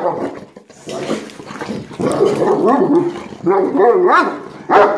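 Dogs barking in a string of short, pitch-wavering bouts with brief gaps between them, part of a dominance tussle between two male dogs.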